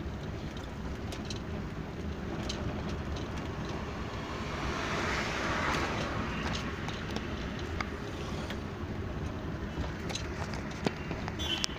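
Steady engine and road noise of a Maruti Zen heard from inside the cabin while driving. A rush of hiss swells and fades about five to six seconds in, and a couple of sharp clicks come near the end.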